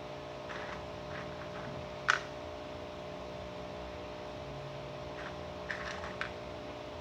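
Biscuits being laid into a plastic container: one sharp click about two seconds in and a few lighter taps near the end, over a steady hum.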